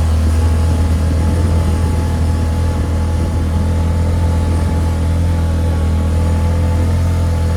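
A vehicle engine running at a steady speed: a constant low drone.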